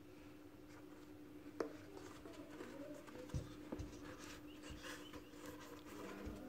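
Faint rustling and scratching of a metal crochet hook being worked through thick T-shirt yarn, with a few soft knocks, over a steady low hum.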